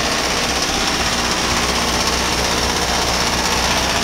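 A Broan 3-ton heat pump's outdoor unit running: a steady low hum under an even rush of air.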